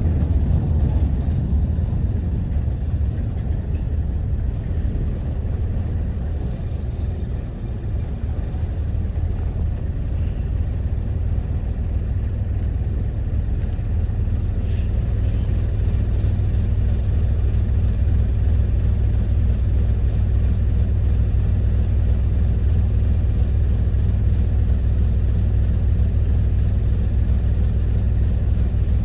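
Optare Solo Versa single-deck bus heard from inside the cabin: its diesel engine running with a steady low rumble, dipping slightly about a quarter of the way through and then holding steady.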